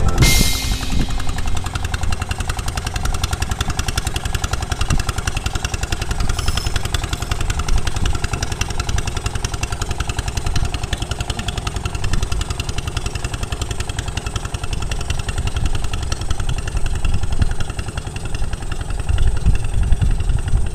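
Small wooden fishing boat's engine running steadily, a fast even chugging with no change in speed.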